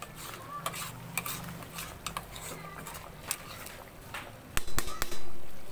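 Metal ladle stirring in an aluminium stockpot of dinuguan, with small clinks and scrapes against the pot. About four and a half seconds in come a few loud sharp knocks as the ladle strikes the pot.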